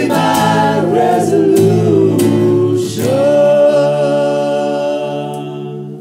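Male a cappella vocal group singing in close harmony, with a few sharp percussive clicks in the first three seconds. About three seconds in they settle on a long held final chord that fades away.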